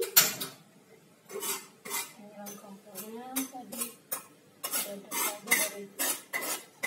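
A cooking utensil scraping and clinking against a metal pot as the contents are stirred, in short irregular strokes about two a second.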